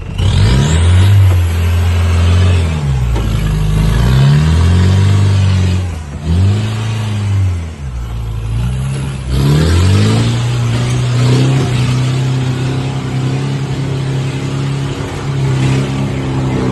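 Off-road vehicle engine revved up and down several times, then held at a steady, higher speed from about ten seconds in.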